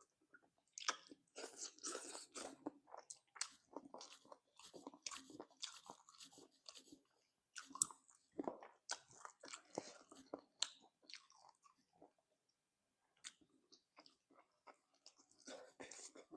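Close-miked mouth sounds of eating spicy chicken feet: chewing and biting in quick, irregular little crackles and clicks. They come thick for about ten seconds, thin out to a few isolated clicks, then pick up again near the end.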